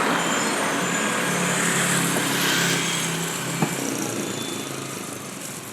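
A motor vehicle's engine passing by on the road and fading into the distance, with a single sharp click about three and a half seconds in.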